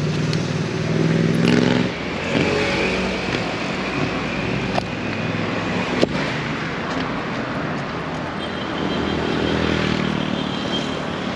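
Street traffic: motor vehicles passing close by, their engines swelling and fading, twice. A high steady tone sounds over them at times, and there are two sharp clicks around the middle.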